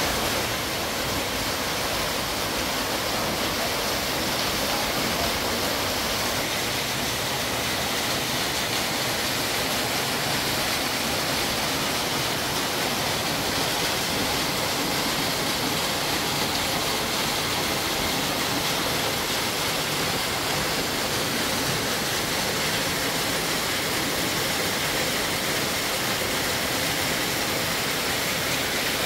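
A small waterfall cascading over rock into a shallow stream, a steady even rushing of water.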